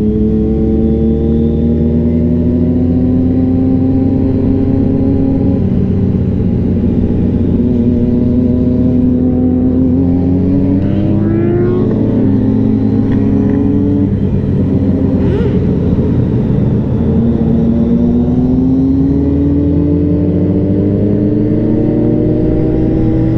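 Sport motorcycle's engine running under way, heard from the rider's seat. Its note rises and falls with the throttle: it climbs about ten to twelve seconds in and drops back, then climbs steadily again over the last few seconds.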